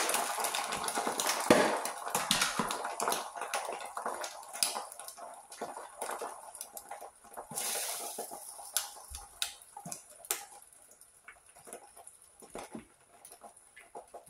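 Beaten eggs sizzling softly in a nonstick frying pan, the sizzle thinning out after about eight seconds. Scattered light clicks and taps run throughout as strips of vegetable are picked from a plastic container and dropped into the pan.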